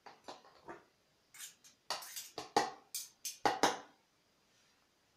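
Hard plastic knocking and scraping against the clear plastic bowl of a hand-blender chopper full of thick blended parsley paste: a quick run of about a dozen short strokes over about four seconds, then quiet.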